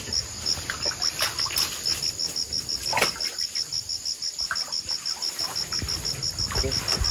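Crickets chirping in a steady, even rhythm of about five or six pulses a second, with a few short sharp noises from the water, the loudest about three seconds in.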